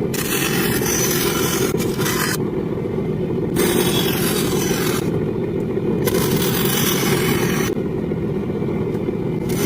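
A power tool motor running steadily while it scrapes against wood in passes of about one to two seconds, the rasping cutting in and out between passes.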